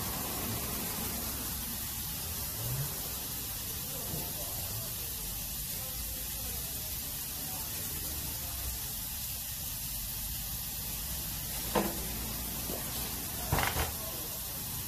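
Compressed air hissing steadily into a stretched truck tire on an over-wide wheel as it is inflated through the air hose. Two short knocks come near the end as the tire is handled.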